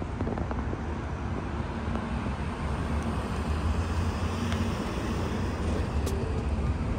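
Road traffic around a car park and access road: cars running past and idling, heard as a steady low rumble.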